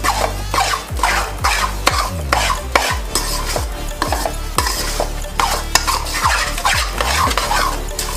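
Spatula scraping and stirring coarse wheat flour roasting in ghee in a metal kadhai, about two strokes a second, with a sizzle from the hot ghee. The flour is being roasted on medium heat for panjiri.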